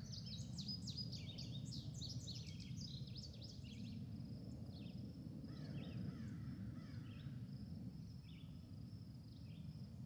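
Small birds chirping and twittering in quick overlapping calls, thickest in the first few seconds and sparser after, with a thin steady high note and a faint low rumble of outdoor background underneath.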